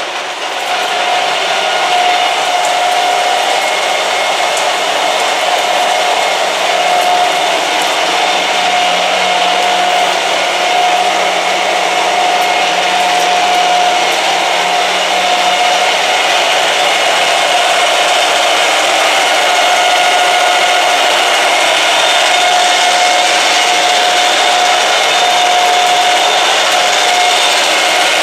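Metal lathe running under power, a loud steady whirring noise with a constant whine in it.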